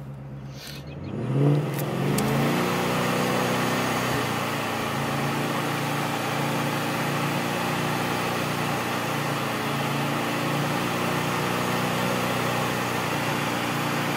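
Supercharged 5.0 Coyote V8 of an S550 Mustang, in neutral, revving up from idle about a second in and then held at a steady 3,500 rpm, heard from inside the cabin.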